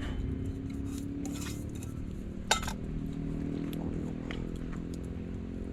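A few light clicks and clinks of utensils and food containers being handled, the sharpest about two and a half seconds in, over a steady low hum.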